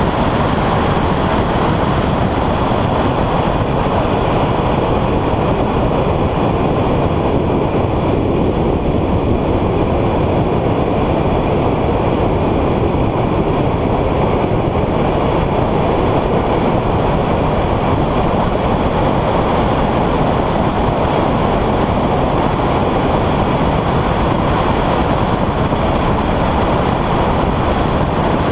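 Car driven at speed on a racetrack: a steady, loud rush of wind, tyre and engine noise.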